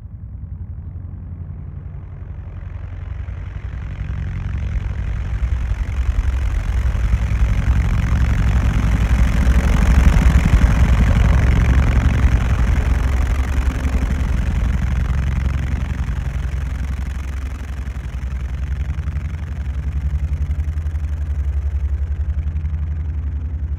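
Helicopter running with a steady, rapid chopping of its rotor over a deep engine rumble. It is processed as 8D audio, panned around the listener. It grows louder to a peak about ten seconds in, fades somewhat, then swells again near the end.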